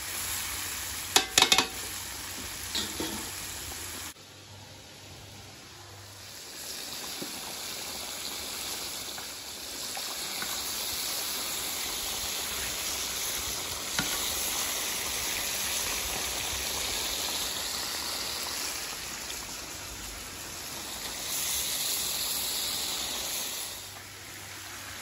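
Mutton sizzling and bubbling in hot oil and its own juices in a karahi wok, with a few sharp metal clinks of the spatula and ladle against the pan about a second in.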